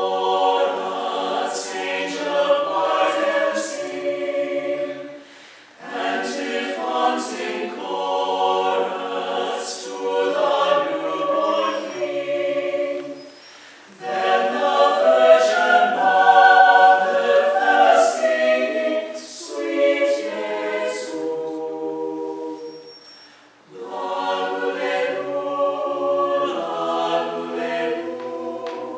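Small mixed-voice choir singing a cappella, with men's and women's voices in harmony. It sings in phrases with three short breaks between them.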